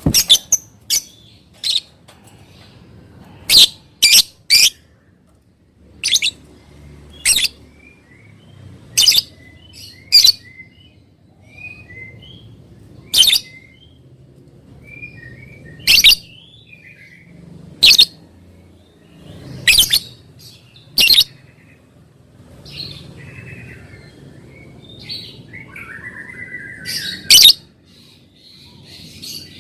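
Lovebird calling: short, loud, shrill calls repeated at irregular gaps of one to two seconds, with softer chirps in between and a longer stretch of chattering near the end.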